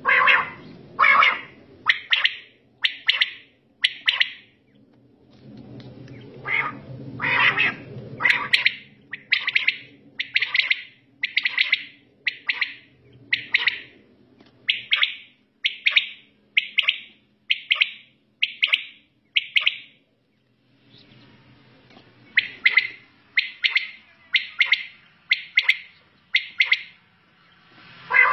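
Caged quails calling: a long string of short, sharp calls at about one a second, in three runs separated by brief pauses.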